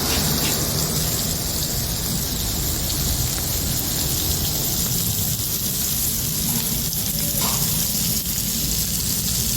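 Meat sizzling steadily on a hot cooking surface, a continuous loud hiss.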